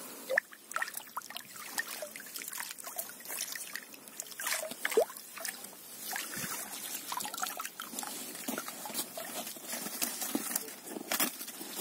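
Water trickling and splashing off a wire-mesh fishing keepnet as it is hauled out of the lake, with many scattered short splashes and clicks.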